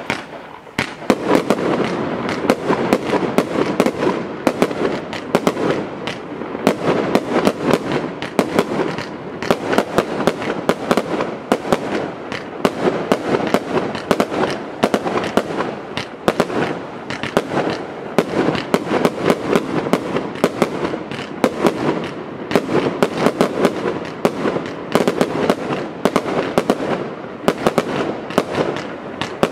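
A firework barrage firing shot after shot without a break: a quick, continuous run of launches and bursts, a few every second.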